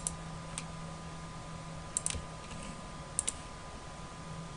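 Scattered sharp clicks from working a computer's mouse and keys: a few single clicks and two quick pairs. Underneath is a steady faint electrical hum.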